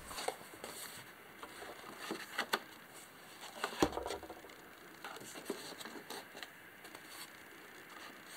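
Faint handling noises: light taps, knocks and soft rubbing as foam sheets and a lens folio are laid into a hard plastic carrying case. The loudest knock comes about four seconds in.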